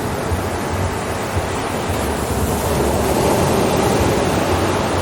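Ocean waves and surf: a continuous wash of breaking water that swells a little about three seconds in.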